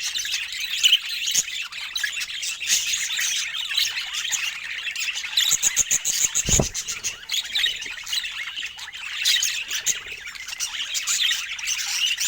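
Budgerigars chattering and warbling non-stop, a busy mix of squawks and chirps, with one dull thump about halfway through.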